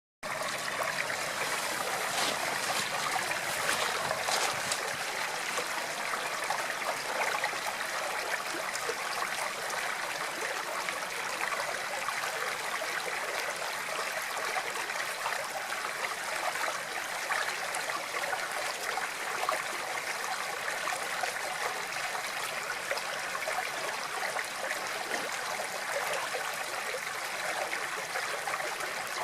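Flowing water, a stream running and trickling steadily with an even hiss.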